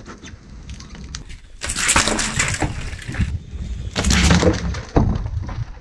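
Full aluminium drink cans crumpling and bursting under a slowly rolling car tyre, with the drink spraying and splashing out. The crunching comes in two loud spells, about two seconds in and again about four seconds in.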